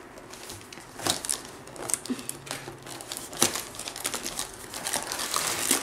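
Plastic wrapping crinkling and rustling as a cardboard diamond-painting kit box is handled, with a few sharper crackles.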